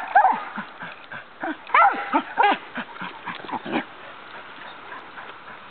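Dog whining and yelping in short, high cries that fall in pitch, several in quick succession, thinning out after about four seconds. The dog is excited and frustrated at being held back on a leash.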